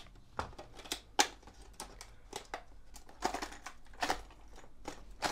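A fishing lure's packaging being worked open by hand: irregular clicks and crinkles, the sharpest about a second in.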